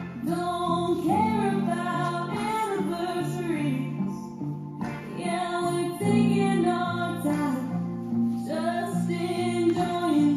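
Song with a female vocal over instrumental backing.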